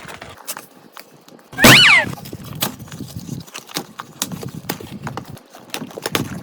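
Small clicks and clinks of miniature toy cookware being handled, irregular and scattered. About one and a half seconds in comes one loud, short, neigh-like cry that falls in pitch.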